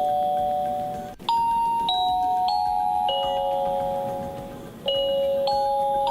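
Honeywell P3 Premium portable wireless door chime playing its built-in chime tunes. The last ding-dong note rings out and fades in the first second, then a four-note chime phrase starts, each note ringing on under the next. A second four-note phrase follows near five seconds in.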